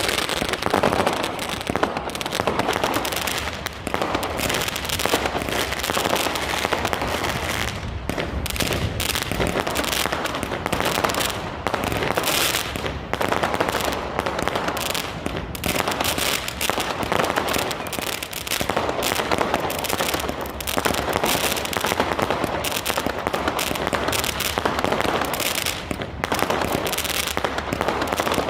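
Fireworks going off in a dense, unbroken stream of rapid cracks and pops, keeping an even loudness with no pauses.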